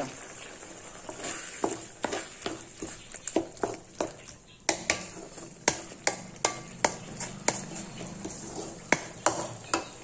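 Wooden spatula stirring egg into a sizzling masala in a metal kadai. It scrapes and knocks against the pan about twice a second over a steady frying sizzle.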